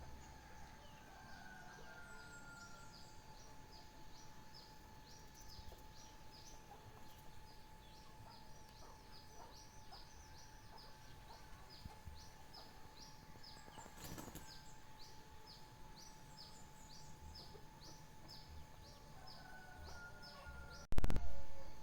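A songbird repeating a short, high, falling chirp about twice a second, over a faint steady hum of background noise. Near the end a sudden loud thump cuts in and fades away.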